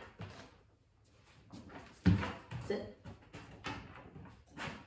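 A person's voice in short bursts of speech, the loudest about two seconds in.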